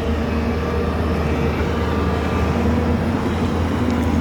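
Excavator engine running steadily: a continuous low drone with a few steady tones above it.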